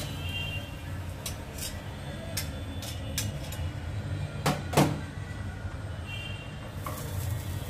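Metal spatula scraping and tapping against a cast-iron tawa as a fried egg is lifted off and moved to a plate: a series of short clicks, then two louder metal clinks close together about two-thirds of the way through, over a steady low hum.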